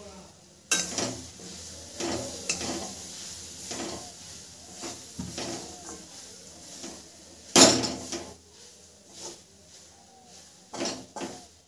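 Steel spatula scraping and knocking against a steel kadhai as it breaks up and stirs lumps of jaggery, in irregular strokes, the loudest a sharp clank about seven and a half seconds in.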